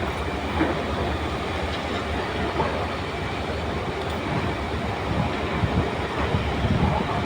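Plastic toy truck rolling and rattling over dirt: a steady rumble with many small clicks.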